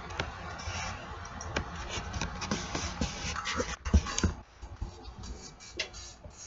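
Handling noise as a camera is picked up and turned around: irregular rubbing, scraping and knocks on the microphone, the sharpest knock about four seconds in.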